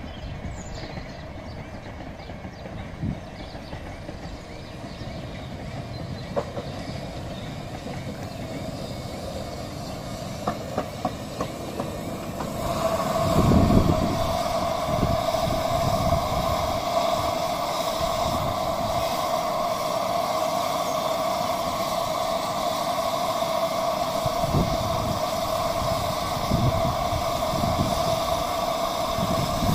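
A 15-inch-gauge miniature steam train, the locomotive Hurricane, rumbling over a road level crossing, with a few clicks as it approaches. About halfway through it grows louder and a steady high two-note tone starts, running on with low thuds as the coaches roll across.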